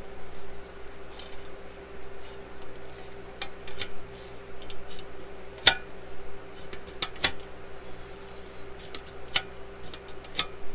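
Irregular metal clicks and clacks from a homebuilt Zenith 701 flap handle being worked by hand, its spring-loaded lock snapping into and out of the notches of the aluminum detent plate. A steady hum runs underneath.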